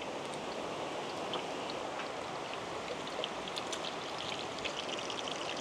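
Hot oil sizzling steadily with many small crackles: lemongrass fritters stuffed with chicken frying.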